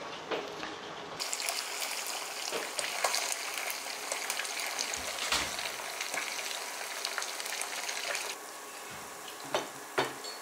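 Flour-battered pond loaches deep-frying in hot oil in a pan: a steady sizzle dotted with small crackles and pops. The sizzle grows fuller about a second in and eases near the end, followed by two sharp ticks.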